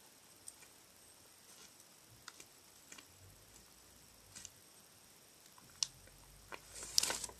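Faint, scattered clicks and light taps from writing a name down, a dozen or so spread out, with a couple of sharper taps in the last two seconds.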